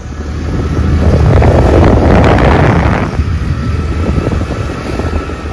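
Wind buffeting the microphone on a moving motorbike, over a low engine rumble; the buffeting swells loudest about a second in and eases off after about three seconds.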